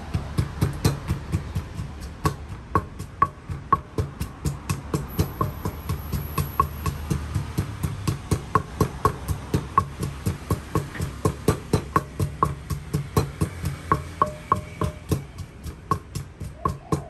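Wooden pestle pounding in a large earthenware mortar, a steady run of knocks about two to three a second, as the salad ingredients are bruised together.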